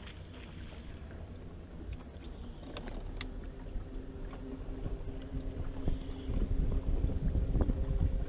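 Wind and water rumble around a bass boat's front deck, growing louder in the last couple of seconds, with the steady hum of the electric trolling motor coming in a few seconds in. A few sharp clicks sound shortly before the hum starts.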